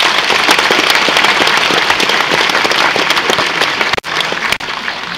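Audience applauding: dense clapping that thins out about four seconds in.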